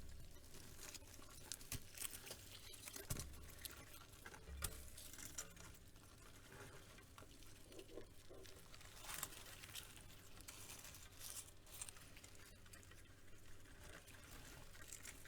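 Praying mantis making faint, irregular scratching and crackling with scattered light clicks, a few louder clicks in the first five seconds.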